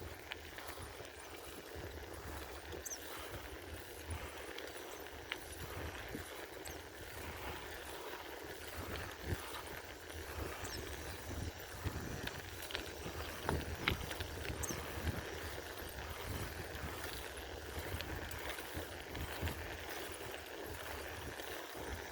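Sound of riding a bicycle: an uneven low rumble with a steady hiss and scattered small clicks and rattles.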